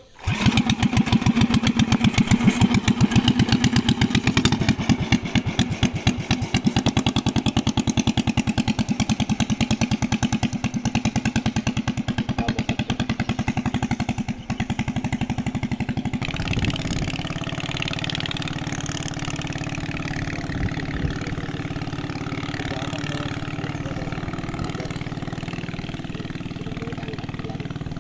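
Modified Yasuka 500 small petrol engine with a short open exhaust pipe, catching at once after a pull-start and then running hard at high revs with a fast, even firing beat as it drives the longboat. About sixteen seconds in it becomes quieter and steadier, heard from farther off as the boat moves away.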